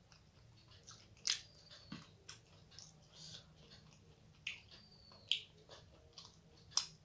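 A person chewing food close to the microphone, with wet mouth sounds and several sharp smacking clicks, the loudest about a second in and three more in the second half.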